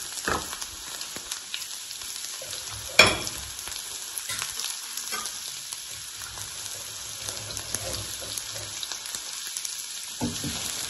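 Finely chopped onion frying in hot oil in a nonstick pan: a steady sizzle with scattered crackles. A single sharp knock sounds about three seconds in.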